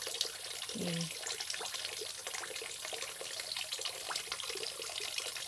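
Water running into a fish pond from an inflow pipe: a steady trickling splash on the surface, with many small splashes.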